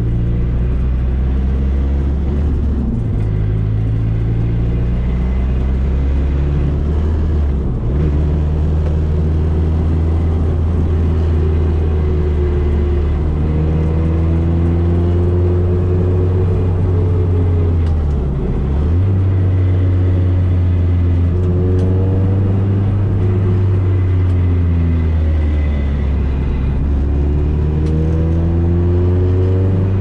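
Nissan S13's turbocharged SR20DET four-cylinder engine heard from inside the cabin while driving, revs climbing and falling repeatedly. Brief drops in the engine note come about 3, 8 and 18 seconds in.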